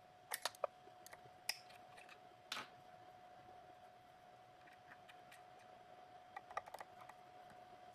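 Faint scattered clicks and small metal taps as a cutter is handled and fitted into the top of a 2M2 Tank CNC key cutting machine: a few around the first second, one near three seconds, and a cluster near the end, over a faint steady hum.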